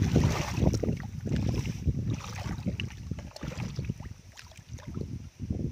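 Bare feet squelching and sloshing through shallow watery mud in uneven bursts, with wind rumbling on the microphone.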